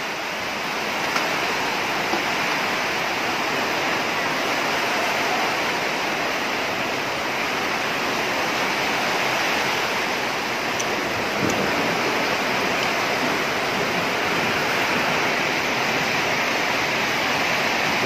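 Heavy thunderstorm rain pouring down as a steady, dense hiss that stays even throughout.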